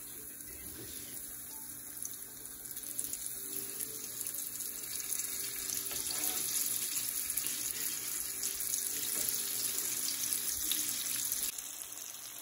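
Cornmeal-breaded green tomato slices sizzling in hot canola oil in a frying pan: a steady crackling hiss with small pops. It grows louder as more slices go into the oil, is loudest through the middle and eases shortly before the end.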